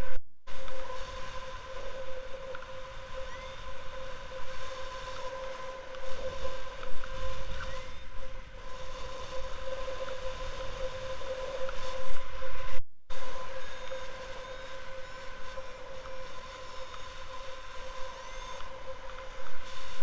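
Wind rushing over the microphone of a paraglider's camera in flight, a low buffeting rumble, with a steady high-pitched whine running under it. The sound cuts out completely twice, briefly, near the start and about two-thirds of the way through.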